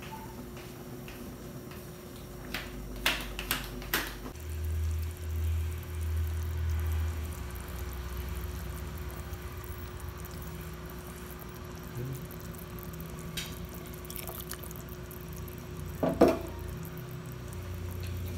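Pot of chicken tinola, a ginger chicken soup, boiling: a steady bubbling, watery hiss over a faint steady hum. A few sharp clinks come about three to four seconds in, then low thumps, and there is a single loud knock near the end.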